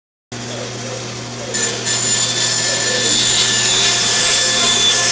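Bandsaw running with a steady motor hum, then about a second and a half in its blade starts cutting through wood, trimming the end of a wooden sled, and the sound grows louder and brighter.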